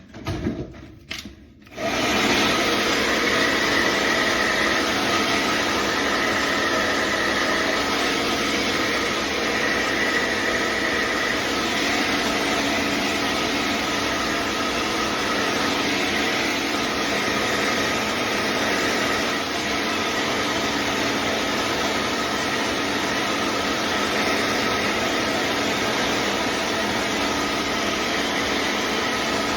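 Hair dryer fitted with a diffuser attachment, switched on about two seconds in and then blowing steadily at a constant level with a faint whine.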